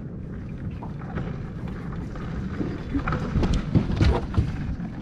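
Low rumble of a small fishing boat at sea with wind buffeting the microphone, and a few irregular knocks and splashes in the second half.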